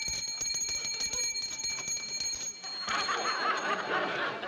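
A bell ringing rapidly and continuously, stopping about two and a half seconds in, followed by studio audience laughter.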